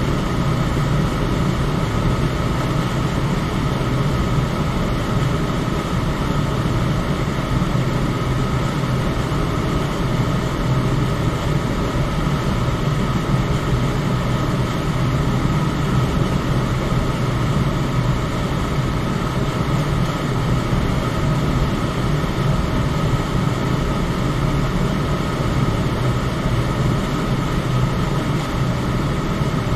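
Electric fan running steadily, a constant whooshing hum with a low drone and a faint steady whine above it.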